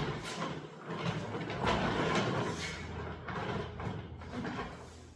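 Irregular knocks, rattles and scraping as a plastic five-wheeled detailing stool is handled and moved about.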